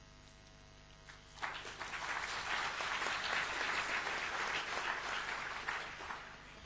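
Audience applauding, starting suddenly about a second and a half in, holding steady, then dying away near the end.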